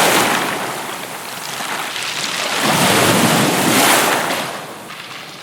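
Wind gusting: a loud, even hiss that swells and fades, loudest about three to four seconds in and dropping off near the end.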